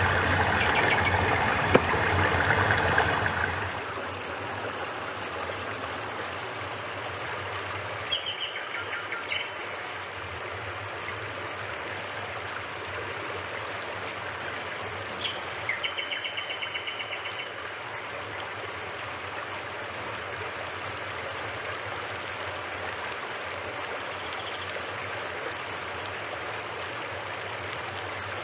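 Steady rushing of a stream, fuller and louder for the first few seconds. A bird twice gives a short trill of rapidly repeated high notes, about 8 and 16 seconds in.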